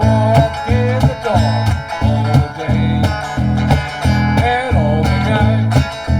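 Live band playing an instrumental passage: a guitar lead with bending, sliding notes over a bass guitar line and a steady kick drum beat about twice a second.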